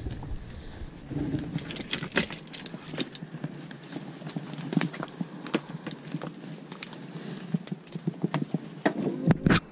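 Irregular clicks, knocks and rattles of fishing rods and gear being handled and taken out of a car's boot, with a louder thump near the end.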